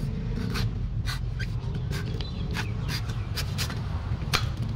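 A steel cleaver chopping into the husk of a golden coconut in quick repeated strokes, about two to three cuts a second, over a steady low rumble.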